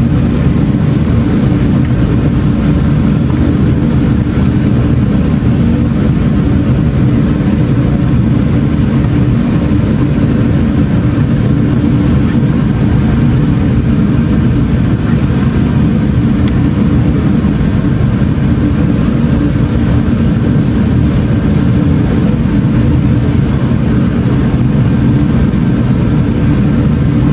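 A car engine running steadily, a deep, even low drone with no revving.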